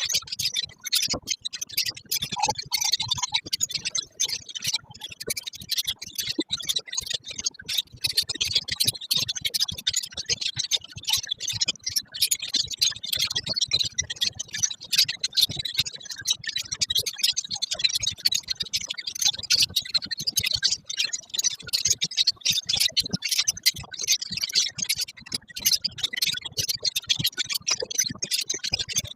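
Colony of lovebirds chattering: a dense, constant mass of high chirps and rapid clicking calls from many birds at once.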